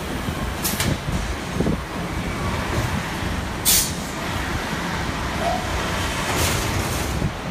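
Truck assembly-line floor noise: a steady mechanical din with three short hisses of released compressed air, the loudest about four seconds in.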